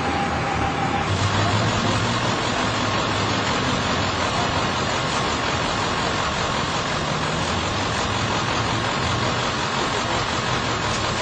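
Steady low hum of an idling vehicle engine under an even hiss.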